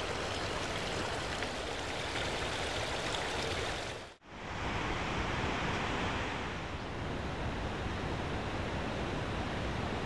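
Steady rushing of a mountain stream, even and unbroken apart from a brief dropout about four seconds in.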